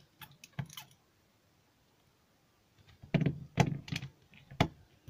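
Sharp small clicks and taps of a metal precision screwdriver and a phone's plastic housing being handled as the bit is set to a screw: three light clicks in the first second, then a louder cluster of about five clicks and knocks from about three seconds in.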